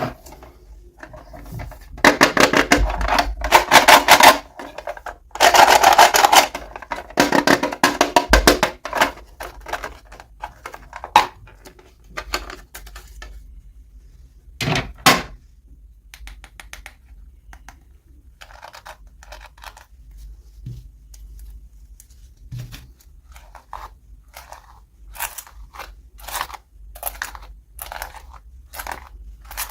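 Toy packaging being handled and opened: two loud stretches of crinkling and tearing, each a couple of seconds long, then scattered clicks, taps and small rustles.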